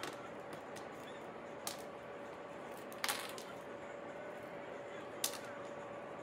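A few light clicks and taps as a wooden clothespin is handled and set down on a glass tabletop, over a steady background hiss with a faint hum.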